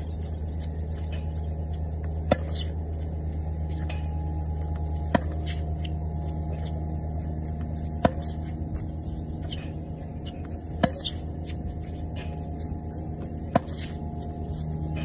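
Tennis racket strings striking a tennis ball on forehand groundstrokes: five sharp pops, one about every three seconds, over a steady low hum.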